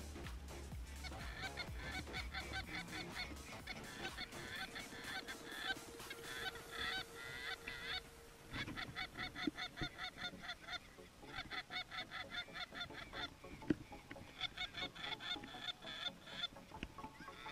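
A flock of geese honking, many calls overlapping in quick runs, with short lulls about eight and eleven seconds in.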